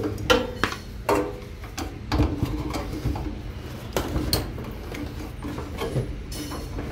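A steel screwdriver clinking and scraping against an oven's sheet-metal casing as screws are worked loose, with several sharp clicks and knocks, most of them in the first half.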